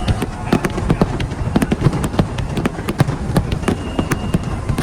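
Fireworks going off in a rapid barrage: many sharp cracks and bangs, several a second, over a continuous low rumble.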